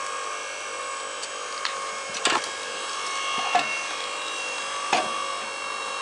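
Hydraulic log splitter running with a steady hum as its ram forces a log apart. The wood gives three sharp cracks, a little over a second apart, as it splits.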